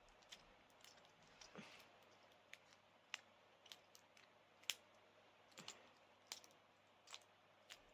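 Faint, irregular small clicks and taps of a padlock and lock-picking tools being handled, about a dozen in all, the sharpest a little past the middle.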